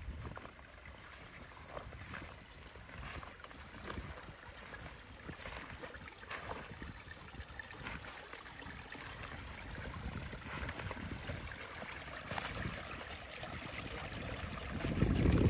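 Small stream running and trickling, a steady splashing hiss with small water ticks, growing gradually louder toward the end.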